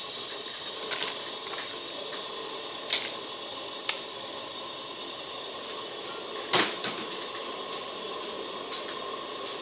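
Large aluminium stockpot of beef soup simmering, a steady bubbling hiss broken by a few sharp clicks and knocks, the loudest about three seconds in and again past six seconds.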